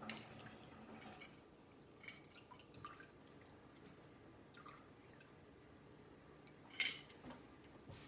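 Apple brandy dripping slowly from strained apples into a container: sparse, faint drips, with one louder drip or tap about seven seconds in.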